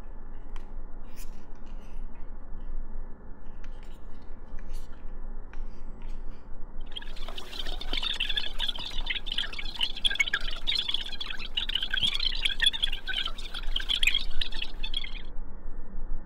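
Irregular crackling and rustling of hair against a heated Slide Curler curling iron, starting about seven seconds in and lasting about eight seconds.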